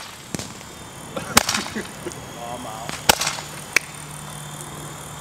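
Fireworks going off: four sharp bangs, the loudest about one and a half and three seconds in. A low steady hum comes in about three seconds in.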